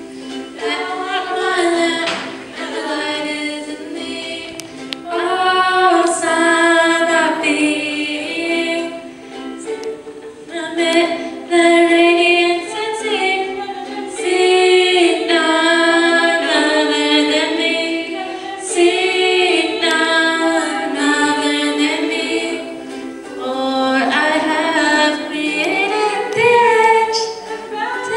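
Three women singing a song together, accompanied by a strummed ukulele.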